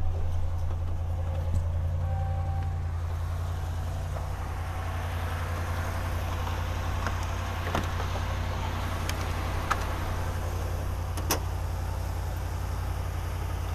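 Dodge Ram's 5.7-litre Hemi V8 idling steadily just after being jump-started on a flat battery. A short beep sounds about two seconds in, and a few sharp clicks follow later.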